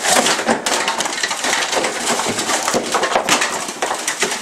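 Kitchen contents being smashed and thrown about: a dense run of crashing, clattering and splintering impacts that starts with a loud crash.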